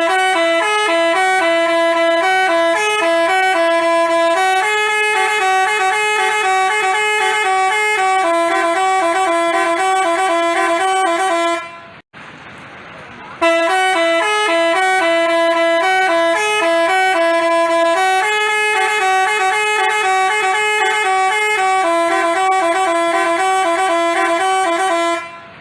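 Telolet basuri multi-tone bus horn playing a quick stepped melody for about twelve seconds, breaking off briefly about halfway, then playing the same tune again.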